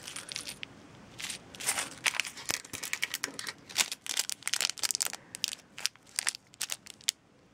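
Small clear plastic bags of jewellery findings being handled and crumpled in the hands: irregular crisp crinkling and crackling that dies away near the end.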